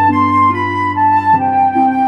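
Background music: a slow melody of long held notes over sustained chords, with the chord changing partway through.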